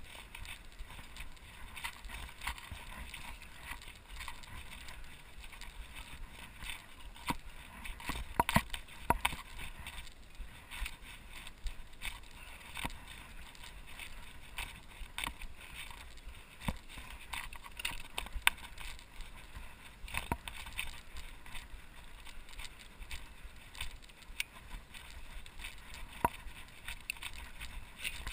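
Mountain bike riding over rough, stony dirt: tyres crunching, and the frame and chain rattling with sharp knocks at every bump. The hardest knocks come in a cluster about a third of the way in, over a steady low rumble of wind on the microphone.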